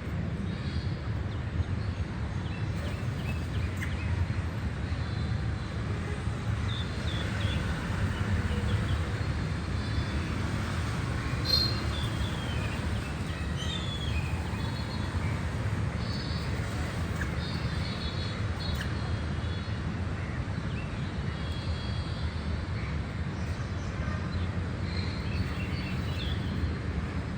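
A crow making short cough-like sounds now and then, which its owner wonders may mean a blocked windpipe. Behind it runs a steady low rumble of background noise, with bird chirps.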